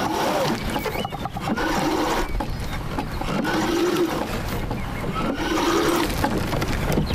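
Wind buffeting the microphone and water moving along the hull of a small sailboat under sail. In the second half come two drawn-out tones, each about a second long, rising then falling.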